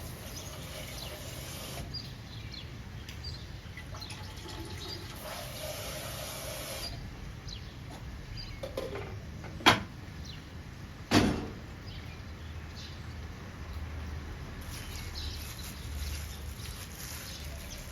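Faint steady background noise with two sharp knocks about a second and a half apart near the middle.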